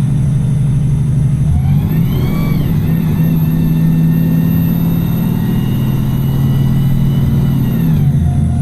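Wright Pulsar single-deck bus accelerating hard: engine drone with a transmission whine that rises in pitch about two seconds in, holds steady at high revs for several seconds, then drops near the end.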